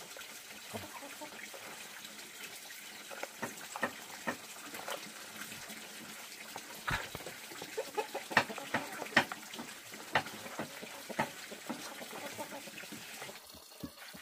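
Hands turning and rubbing pieces of pork fat through white powder in a plastic basin: irregular gritty crunches and soft taps, busiest in the middle, over a steady background hiss.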